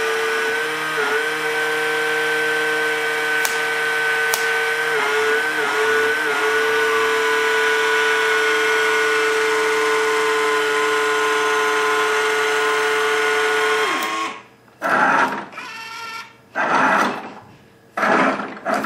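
Omnibot 2000 toy robot's arm gear motors whirring with a steady high whine as it lifts a glass, the pitch wavering briefly a few times. The whine cuts off after about fourteen seconds, followed by three short, loud whirring bursts.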